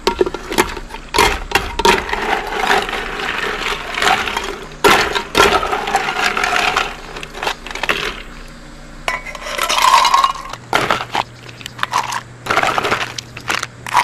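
Ice cubes clinking and rattling as they are scooped from an ice bucket with a small cup and dropped into a stainless steel tumbler of hot coffee: a dense run of sharp clinks and knocks throughout.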